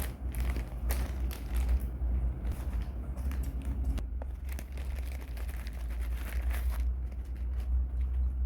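Plastic packaging crinkling and rustling in irregular handling bursts as a parcel is unwrapped, over a steady low hum.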